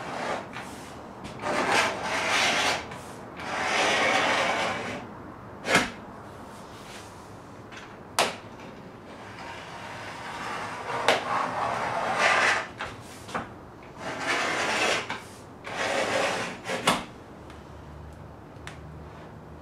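A razor knife scoring a sheet of Formica laminate along a metal straightedge: several scratching strokes about a second long each, with a few sharp clicks between them.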